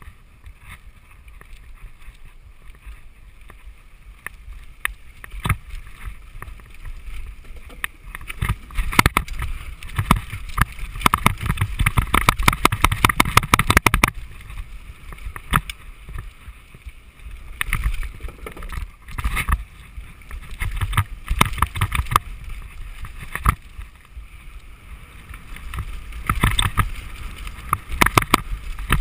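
Mountain bike clattering and rattling as it rides fast downhill over a rough, rocky dirt trail, with rapid knocks from the frame and drivetrain. The clatter comes in dense loud stretches over the bumpiest ground, about a third of the way in, again past the middle, and near the end.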